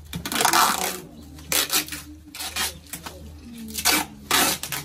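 Packing tape being pulled off its roll and pressed around a cardboard carton: about five short rasping pulls, the longest near the start.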